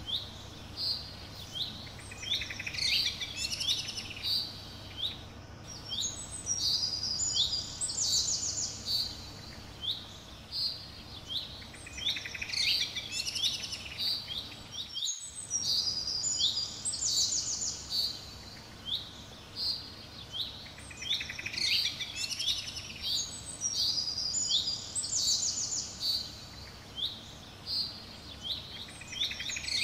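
Small birds chirping and trilling in a busy chorus of short, quick calls, with a brief dropout about halfway through.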